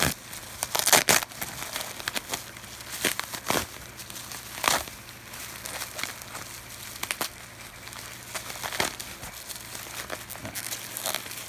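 Packaging being pulled apart by hand, crinkling and tearing in irregular bursts, the loudest about a second in.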